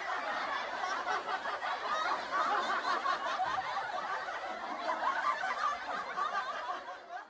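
Laughter, continuing without a break and fading out near the end.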